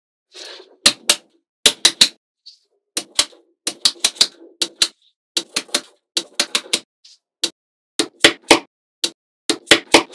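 Small magnetic balls snapping onto one another: about two dozen sharp clicks at an uneven pace, often in quick pairs or threes, as balls are placed one by one.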